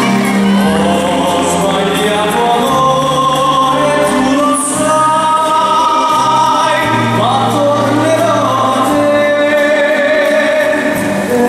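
Ballroom dance music with a sung vocal line over held chords and a slowly stepping bass, played loud and steady.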